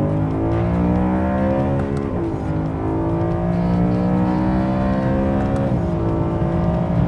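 2011 BMW M3's 4.0-litre V8 accelerating hard through the gears, heard from inside the cabin. The engine note climbs steadily in pitch, then drops sharply at quick dual-clutch upshifts about two seconds in and again near six seconds, and climbs again each time.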